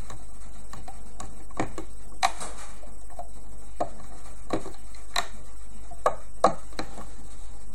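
Irregular light clicks and taps, about a dozen, as a metal loom hook knocks against the plastic pins of a rubber-band loom while bands are looped up. A steady low hum runs underneath.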